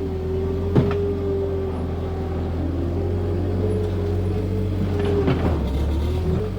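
Skid steer running steadily, a low engine drone with a wavering whine above it, and a sharp knock about a second in.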